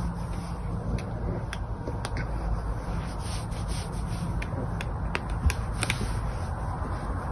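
Hands stroking and rubbing a caracal's thick fur, over a steady low rumble, with a few sharp clicks scattered through, the loudest a little after the middle.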